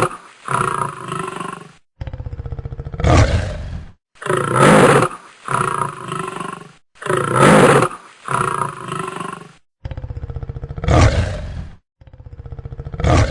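Big cats roaring and growling in a string of separate short calls, each cut off sharply into silence. Several begin with a fast pulsing rumble that swells into a loud open roar, followed by a lower snarling growl.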